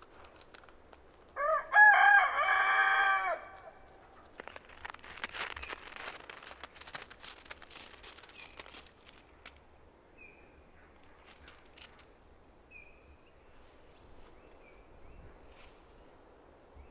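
A rooster crows once, one call of about two seconds. It is followed by several seconds of scratchy rustling and a few faint short chirps.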